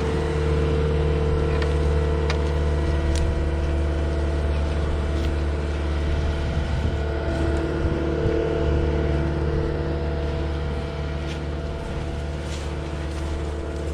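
ASV compact track loader's engine held at high revs with a steady drone while it drags logs on a chain through snow, easing off slightly near the end, with a few faint clicks over it.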